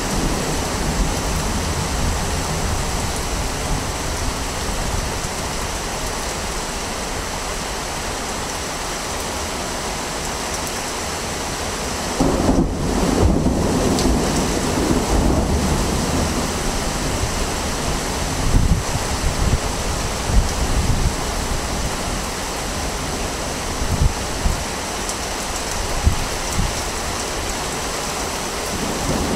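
Wind buffeting the microphone outdoors: a steady rushing noise with irregular low rumbling gusts.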